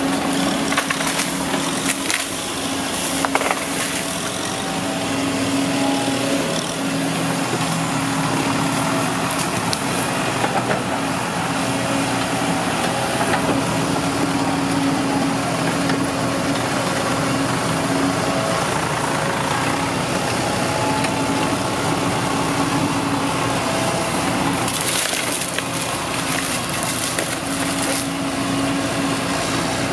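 Kobelco SK140 hydraulic excavator's diesel engine running steadily under load while its bucket pushes against a palmyra palm, with the cracking and splintering of palm wood and roots. Scattered cracks come near the start and a denser spell of cracking near the end.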